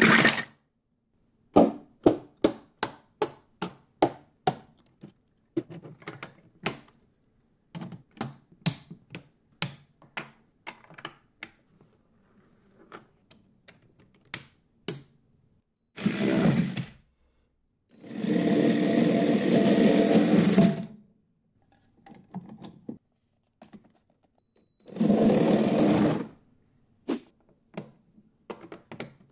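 Plastic Lego Technic parts clicking, snapping and rattling as a model is put together by hand, a long string of sharp separate clicks. Three times the clicks give way to a small electric motor whirring through plastic gears and tracks; the longest run lasts about three seconds.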